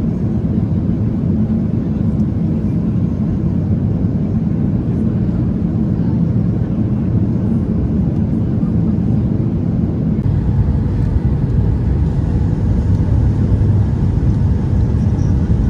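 Steady low rumble of a Boeing 737 MAX 8 jet airliner. About ten seconds in, the rumble shifts lower and grows a little louder.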